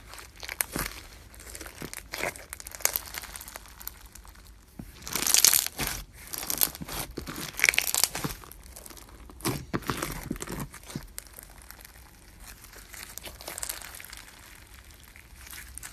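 Slime being squeezed and stretched by hand, making an irregular run of crackles and rustles, loudest about five seconds in and again near eight.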